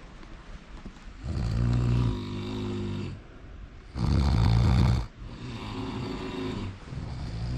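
Snoring: a run of four long snores, each one to two seconds, with short gaps between them. The loudest comes about four seconds in.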